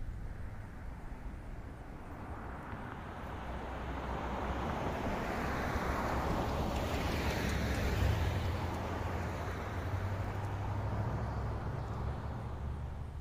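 A car driving past on the street, its tyre and engine noise swelling to a peak about seven seconds in and then fading, over a steady low rumble.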